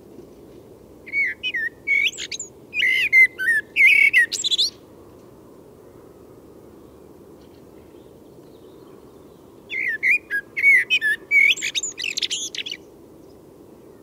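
Male common blackbird singing: two fluty, warbled phrases a few seconds long, each ending in higher squeaky twitters, with a pause of about five seconds between them.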